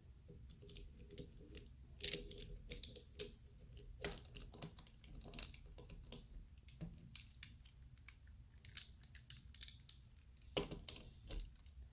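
LEGO bricks clicking and rattling as pieces are handled and pressed into place, in scattered clusters of small clicks.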